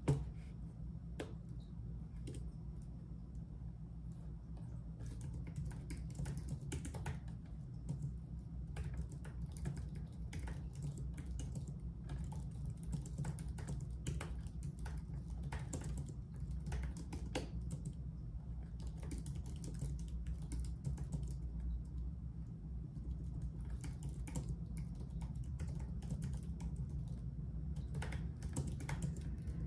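Typing on a computer keyboard: runs of key clicks at an irregular pace with short pauses between them, over a steady low hum. One sharper knock comes at the very start.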